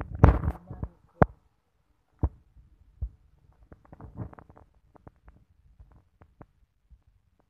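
A burst of rustling and knocking at the start, then two sharp single knocks about one and two seconds in, and a scatter of faint light clicks after.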